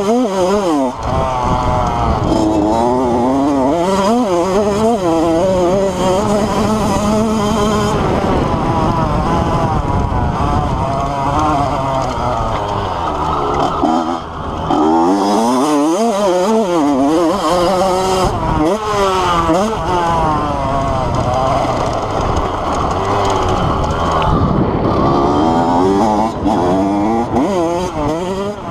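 Honda CR85's two-stroke single-cylinder engine revving hard under full throttle and easing off again and again while ridden on a dirt track. Its pitch climbs and drops repeatedly as the rider shifts and rolls off, with a short lull about a second in and another around the middle.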